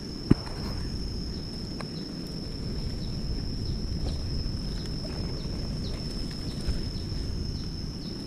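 Forest ambience: a steady high-pitched insect drone over low rumbling noise, with a sharp knock about a third of a second in and faint scattered ticks.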